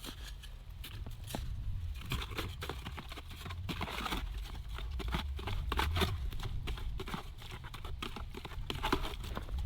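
Snow and water being worked into slush for patching ice cracks: irregular wet crunching and scraping, with a steady low rumble underneath.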